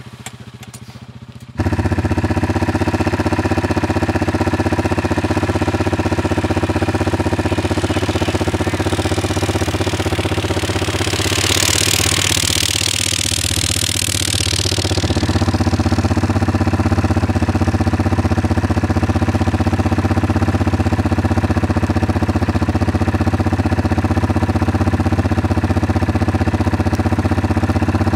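ATV engine idling steadily close by, starting abruptly about a second and a half in, with a rushing hiss for a few seconds around the middle.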